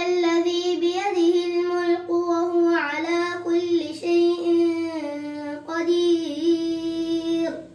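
A boy's voice reciting the Quran in Arabic in a melodic chant (qira'at), holding long, sustained notes in unbroken phrases with short breaths between them. The phrase ends just before the close.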